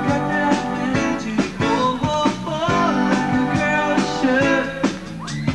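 Live rock band playing: a male lead singer over electric guitar chords and a steady drum beat, about two hits a second.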